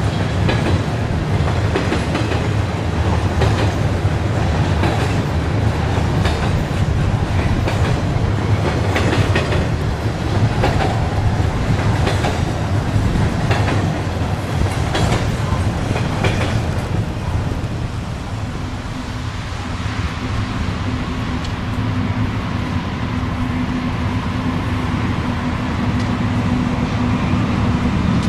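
Freight cars rolling past with their wheels clicking over rail joints above a steady rumble; the clicking dies away as the train clears. Diesel locomotives then approach with a steady low engine hum.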